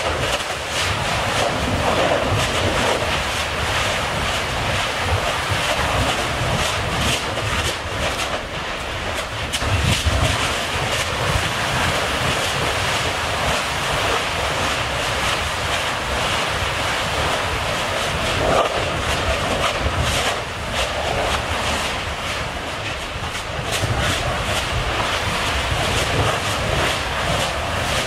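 Kīlauea fissure eruption: a steady, rushing noise of lava fountaining and venting gas, with a low rumble beneath and frequent crackling pops throughout.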